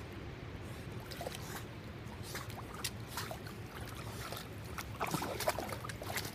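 Water sloshing and small splashes as a dog paddles in and then wades through shallow water, with a brief cluster of splashing about five seconds in.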